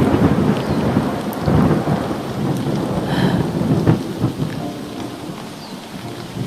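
A clap of thunder that hits suddenly and rumbles for about four seconds before fading, over the steady hiss of rain.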